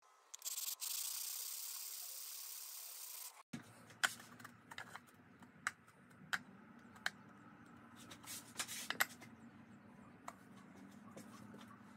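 A steady hiss of rubbing for about three seconds, then, after a sudden change, a scatter of sharp clicks and taps as a steel ruler and a flattening stone are set down against a whetstone, over a low hum.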